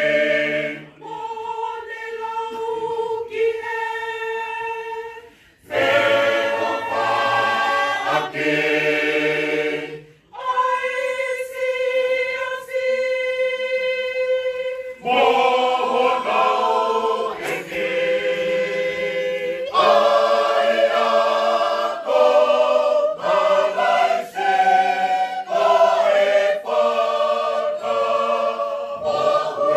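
Tongan church choir of men and women singing a hymn a cappella in parts: sustained chords in phrases, with brief breath breaks between them. A lighter passage gives way to the full choir about six seconds in.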